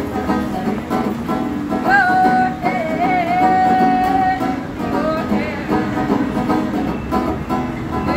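Banjo played on the street, with a woman singing along. She holds one long wavering note about two seconds in.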